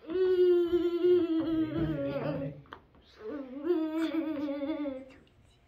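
A voice humming or singing two long held notes, each a couple of seconds, nearly steady in pitch with a slight wobble, with a short break between them.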